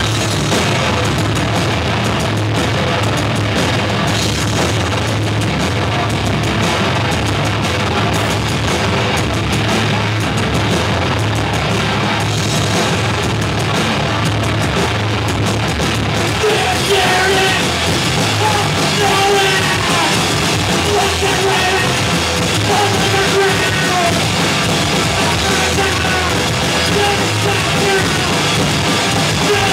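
Live rock band playing loud: electric bass, electric guitar and a Pearl drum kit, with a vocalist's voice coming in over the band about halfway through.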